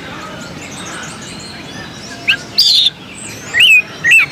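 Oriental magpie-robin (kacer) singing loudly over faint background chirping. About two seconds in it gives a short note and a scratchy phrase, then two loud slurred whistles near the end.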